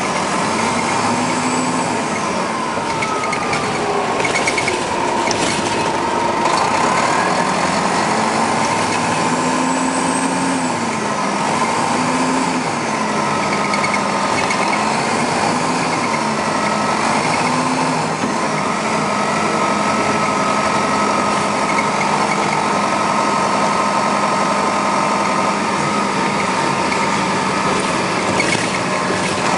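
Detroit Diesel Series 50 four-cylinder diesel of a 1996 Nova RTS transit bus, heard from on board while driving. The engine pitch rises and falls several times through the first half, then holds steadier with a thin high whine over it.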